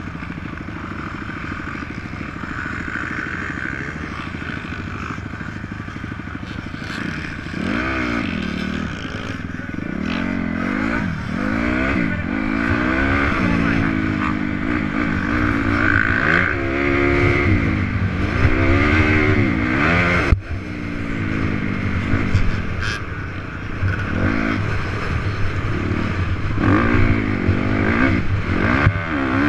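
Honda CRF250R's single-cylinder four-stroke motocross engine under riding, revving up and falling back again and again as the throttle is opened and closed over the track. There is a sharp knock about twenty seconds in.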